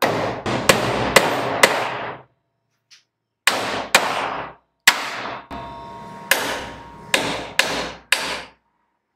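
A hammer driving a steel nail into a thin pine board: about eleven blows in three bursts, four quick ones, then two, then five, each with a ringing tail.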